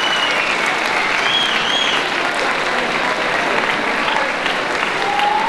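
Audience applauding steadily, with a few high held cries from the crowd in the first two seconds.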